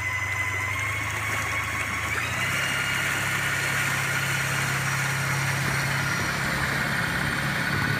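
Torqeedo 1003 electric outboard motor running under way: a thin high whine that steps up about two seconds in and then climbs slowly as the throttle is opened, over a steady rushing noise and low hum.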